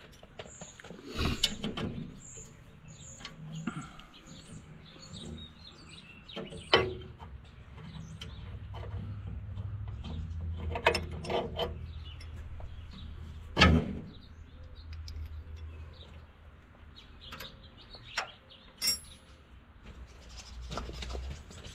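Small birds chirping, with a few sharp metallic clinks and knocks from a combination wrench working bolts on the tractor.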